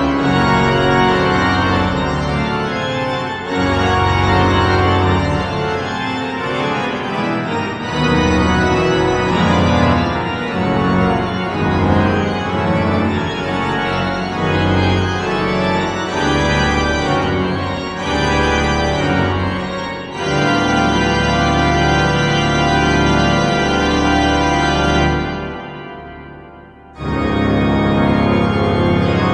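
Pipe organ playing sustained full chords over deep pedal bass notes, the harmony shifting every second or two. Near the end a chord dies away into silence over about two seconds, then a loud full chord comes in.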